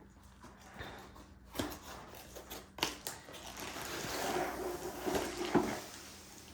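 Packaging being handled and rustled as a diamond painting kit is unpacked, with a few sharp knocks of items being set down or moved; the rustling builds up near the end.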